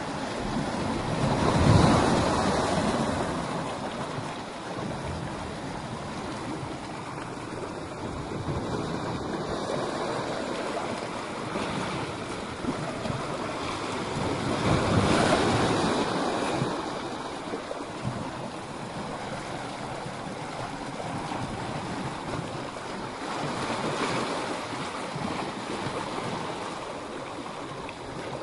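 Sea waves breaking and washing over rocks: a continuous wash of surf that swells louder as waves hit, most strongly about two seconds in and again around the middle, with a smaller surge near the end.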